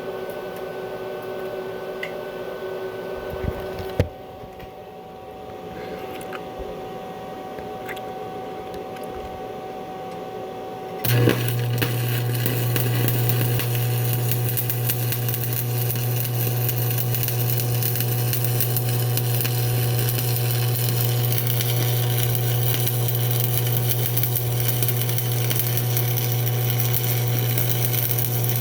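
A stick welding arc is struck about a third of the way in and then burns steadily: a loud, constant electrical buzz with a dense crackle and hiss. Before it, only a steady hum and a single knock.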